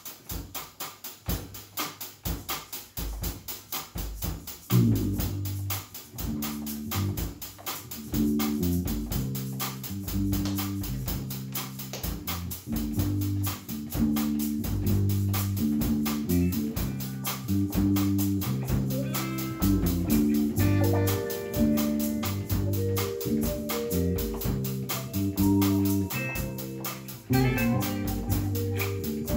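A small live band playing: electric bass, electric guitar, hand drums and keyboard. A steady drum beat runs alone at first, the bass and chords come in about five seconds in, and higher melody notes join in the second half.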